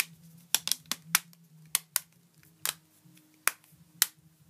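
Sharp plastic clicks and snaps, about a dozen at irregular spacing, as an extended battery and its back cover are fitted and snapped onto a Samsung Galaxy Nexus phone.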